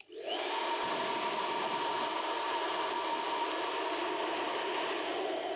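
Elchim 3900 Healthy Ionic Titanium hairdryer switched on, starting suddenly and running at a steady full blow: a rush of air with a steady motor whine.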